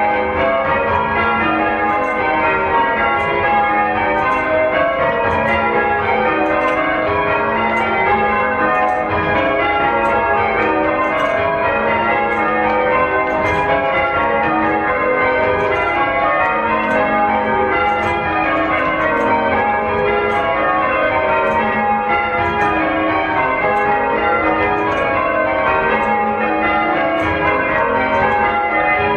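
Church bells rung one after another in a continuous, even stream of strokes, each bell's ring overlapping the next.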